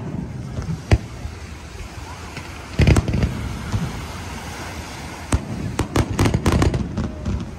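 Aerial fireworks shells bursting overhead: single sharp booms about one, three and five seconds in, then a rapid run of bangs near the end.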